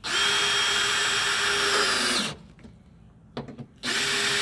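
Yellow DeWalt cordless drill driving Phillips-head bolts into a tailgate insert: a steady motor whine for about two seconds that winds down as it stops, then a few small clicks, then a second run starting near the end.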